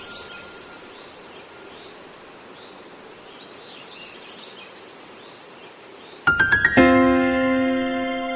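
A steady, quiet noise bed. About six seconds in, a quick run of rising keyboard notes lands on a held piano-like chord as background music begins.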